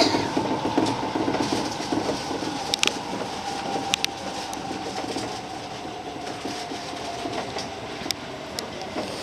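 A 205-series electric commuter train slowing, heard from inside the car: a motor whine falls slowly in pitch while the running noise eases off, with wheels clicking sharply over rail joints a few times.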